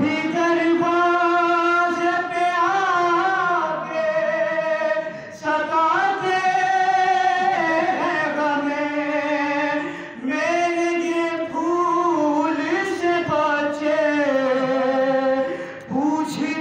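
A young man's solo voice reciting a noha, a Shia lament sung unaccompanied into a microphone, in long held phrases with gliding pitch, pausing briefly for breath about every five seconds.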